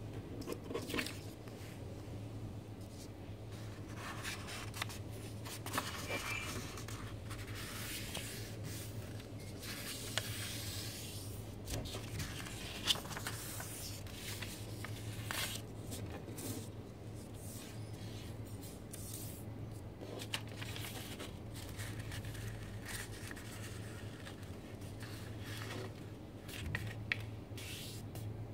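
A square sheet of paper being handled and folded into a triangle: scattered rustling, sliding and crinkling of the paper with a few sharp crackles, over a steady low hum.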